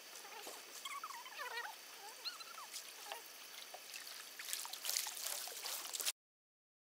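Small waves lapping and trickling on a pebble lakeshore, with a few bird calls, short falling notes, about a second in and again around two seconds in. The lapping grows louder and more crackly near the end, then the sound cuts off abruptly.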